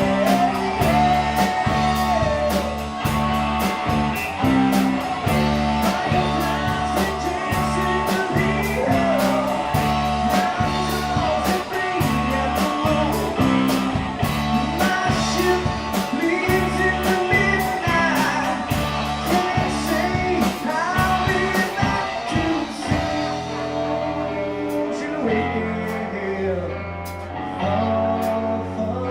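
Live rock band playing with singing, guitar and a steady drum beat; near the end the drums stop, leaving guitar and bass ringing on.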